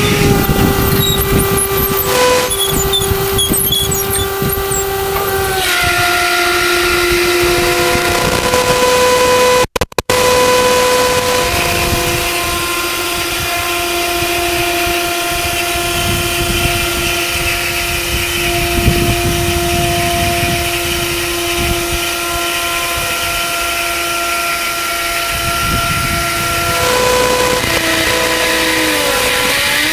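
Forklift engine running under load with a steady whine as its hydraulic mast raises a heavy safe. The pitch steps up and down several times as the throttle and lift change, and the sound cuts out briefly about ten seconds in.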